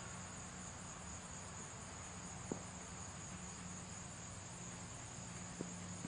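Steady high-pitched chorus of insects, with a faint low hum under it and two small knocks, about two and a half and five and a half seconds in.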